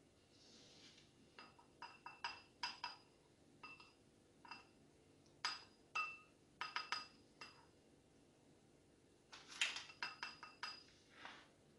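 A spoon clinking against a glass bowl while scooping crumbs: a series of light glass clinks, each with a short ring, in irregular clusters, with several quick ones together near the end.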